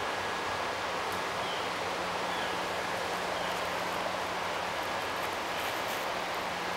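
Steady rush of flowing river water, with a faint steady low hum beneath it.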